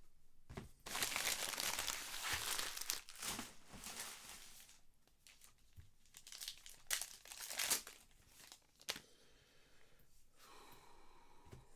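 Baseball card pack wrapper crinkling and tearing in two long bouts, with a sharp crackle near the end.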